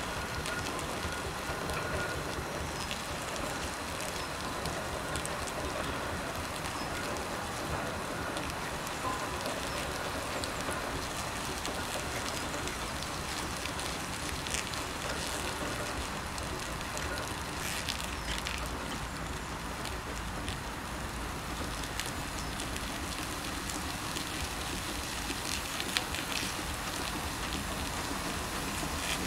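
Fowler steam roller creeping forward: a steady hiss, with a low rumble from its iron rolls that grows in the second half as it draws close.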